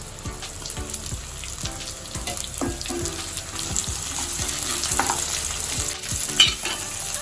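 Chopped green beans sizzling in hot oil in a kadai, with a spatula scraping and knocking against the pan as they are stirred. A sharper clatter comes a little over six seconds in.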